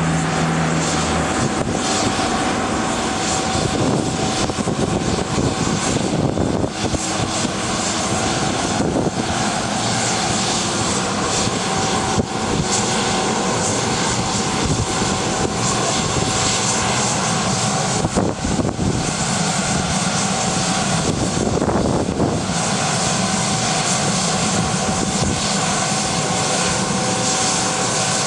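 Bombardier Global Express business jet's turbines running steadily on the ground: a steady whine over a broad rush of jet noise.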